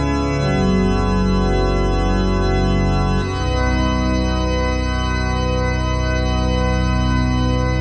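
Background music played on an organ with sustained chords, the chord changing a couple of times.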